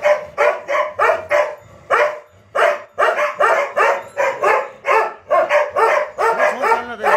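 Himalayan sheepdog barking repeatedly, a fast unbroken run of loud barks at about two to three a second.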